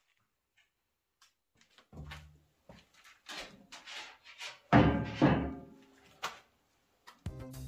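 Background music fading in after a near-silent start, with a loud hit about two-thirds of the way through and a steady beat setting in near the end.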